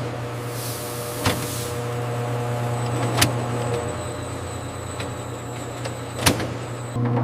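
Factory processing machinery running with a steady low hum, with three sharp clicks or clanks spread through it.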